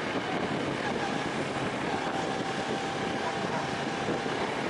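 Motorcycle running at road speed, with a steady rush of wind over the microphone and a faint steady tone for a couple of seconds in the middle.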